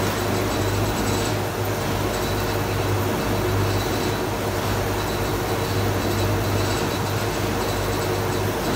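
Pine log debarking machine running, the log turning against the cutter as the bark is stripped off to give a smooth surface for the veneer lathe. The sound is a loud, steady mechanical drone with a low hum and continuous scraping noise.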